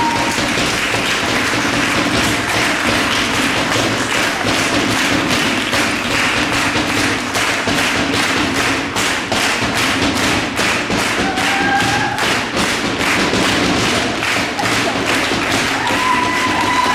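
Large frame drum beaten with a stick in a fast, steady beat, the strokes clearest from about halfway through.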